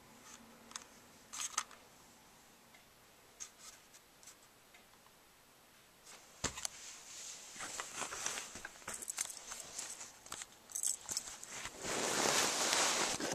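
Close handling noise: a few light clicks early on, then a thump about six seconds in followed by rustling, rubbing and clattering against the camera, loudest near the end as the camera is covered.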